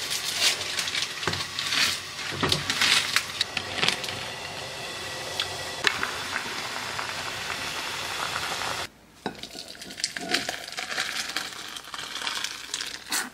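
Instant ramen cooking in a pot on a gas stove: clicks and handling sounds as the soup packet goes in, then a steady bubbling hiss as the noodles boil. After a sudden cut about nine seconds in, the noodles and broth are poured from the pot into a glass bowl with light clatter.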